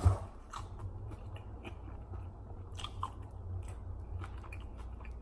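A person chewing and biting into a fried chicken wing close to the microphone, with scattered small mouth clicks and a louder bite right at the start.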